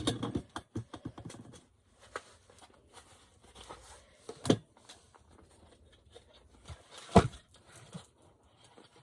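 Camping shovel, axe and their carrying bag being handled and packed: a flurry of small clicks and rustles in the first second and a half, then two sharp knocks, about four and a half and seven seconds in, the second the loudest.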